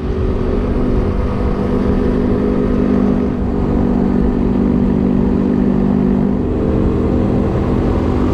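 Motorcycle engine running at a steady cruise, heard from on the bike, with a constant hum and a low wind rumble on the microphone.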